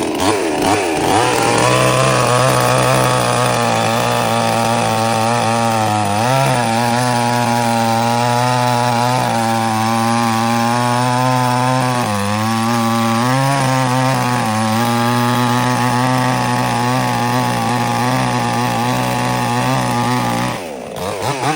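72cc two-stroke petrol chainsaw at full throttle cutting through a log about 50 cm across, a steady high engine note whose pitch sags briefly a few times under load. The sound drops off sharply near the end.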